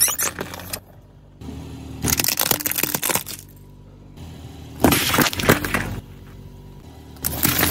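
A car tyre rolling over and crushing objects on asphalt, including aluminium drink cans that burst and spray their liquid. There are four separate crunching, cracking bursts about two seconds apart, over a low steady hum.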